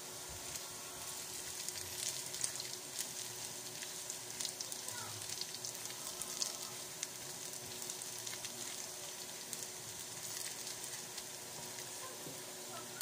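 Sliced garlic sizzling and crackling in hot oil in a frying pan as it is stirred with a spatula. Crackles come thick in the first half, then thin out a little.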